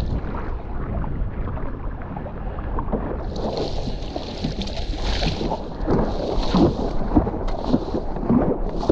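Wind rumbling on an action camera's microphone, with water splashing from paddle strokes on a stand-up paddleboard; the splashing is strongest about halfway through and again near the end.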